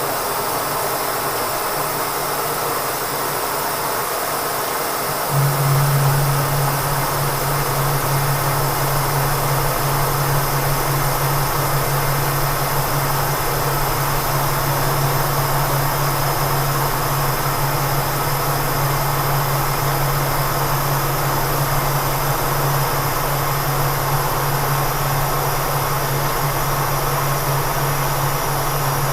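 Kearney & Trecker 307 S-12 milling machine running through a light finishing pass with a 6-flute 1.5 inch finishing end mill, over a steady hiss. About five seconds in a louder low hum comes in and holds steady.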